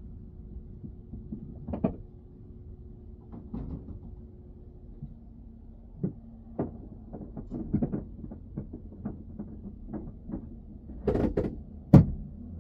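Scattered light knocks and taps inside a parked car over a low steady hum. The knocks come more often in the second half, and there is one sharp loud knock near the end.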